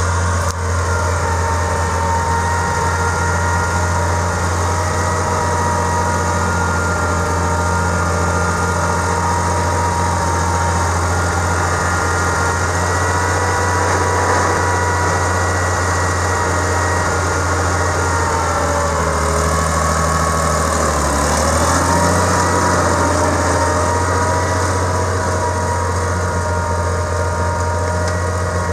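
Farmall 560 tractor's six-cylinder propane engine idling steadily. About twenty seconds in, its speed dips briefly and then recovers.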